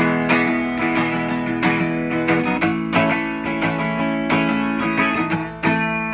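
Acoustic guitar strumming chords in a steady rhythm between sung lines of a slow song.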